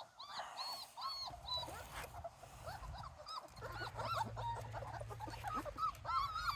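Several puppies whining and squeaking in many short, overlapping high-pitched cries.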